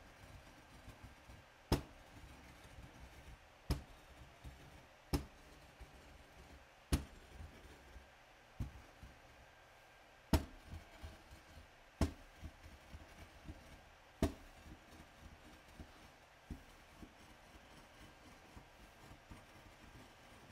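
A white hand muller grinding yellow powder in circles on a glass slab: a low gritty scraping, broken by sharp knocks of the muller against the glass every couple of seconds. The knocks die away near the end.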